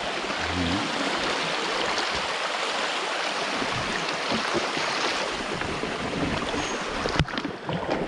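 Shallow river rapids rushing and splashing over rocks alongside a wooden boat, a steady wash of water sound. A single sharp knock comes about seven seconds in.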